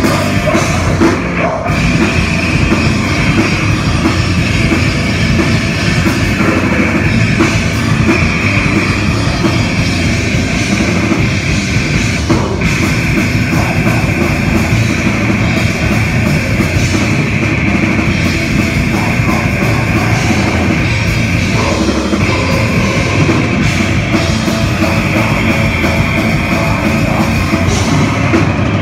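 Metal band playing live and loud: distorted electric guitars and bass over fast drums and cymbals, with a harsh screamed vocal into the microphone.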